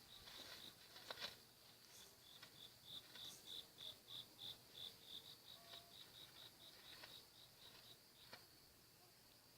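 Faint cricket chirping: a steady run of short, high chirps at one pitch, about four a second, that fades out near the end.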